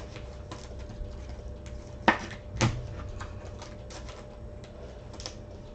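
Trading cards being handled and sorted: a string of light clicks and taps, with two louder sharp snaps a little after two seconds in, over a faint steady hum.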